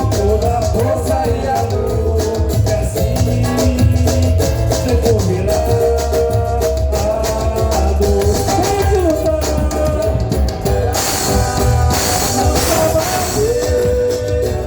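Samba music: a steady bass and percussion under a wandering melody. About eleven seconds in, a burst of hissing noise lasts about two seconds.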